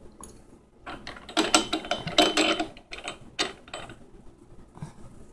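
Metal parts of a meat grinder head clinking and knocking together as it is taken apart to change the grinding plate: a run of short clicks and knocks from about a second in, fading to quieter handling near the end.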